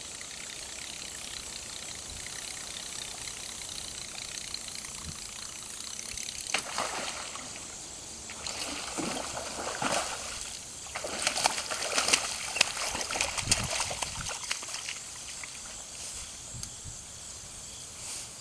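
Hooked bass thrashing and splashing at the water's surface on a buzzbait: a run of irregular splashes starting about six seconds in and dying away after about fourteen, over a steady background hiss.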